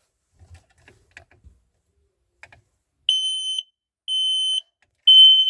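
FireAngel smoke alarm sounding on test: three loud, high-pitched beeps, each about half a second long and about a second apart, starting about three seconds in. A few faint knocks come before them.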